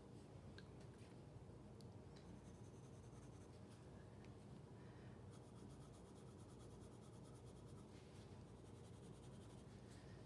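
Faint scratching of a colored pencil drawing short strokes on sketchbook paper, over a steady low room hum.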